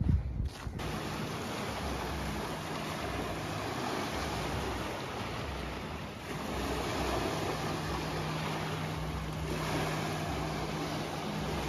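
Steady wind and lake water noise at the shore of a wide, rippled lake, with a brief knock right at the start. A faint low steady hum joins about seven seconds in and fades near the end.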